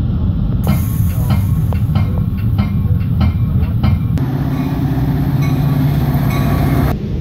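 Metra commuter train rolling on the rails, heard from on board: a low rumble with a regular clicking of the wheels about three times a second. About four seconds in it changes abruptly to the steady, low drone of a Metra diesel locomotive running at a station platform.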